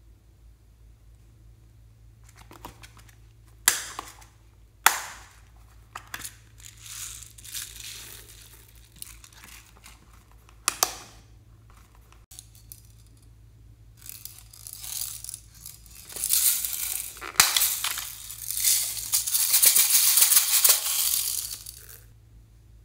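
Small plastic containers being handled, with a few sharp plastic clicks, then a long, dense rattling crackle of tiny sprinkle beads over slime in a glass dish.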